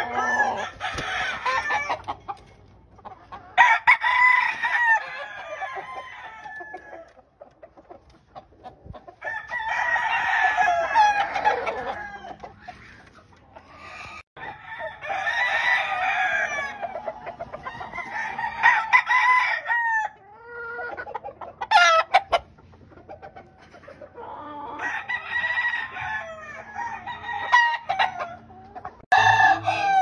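Gamecock roosters crowing again and again: about seven long crows a few seconds apart, with quieter stretches between them.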